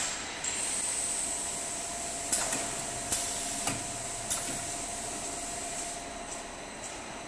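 Single-head UPVC window welding machine working on a clamped PVC frame corner: a steady high hiss over a steady hum, with a few sharp clicks between about two and four and a half seconds in.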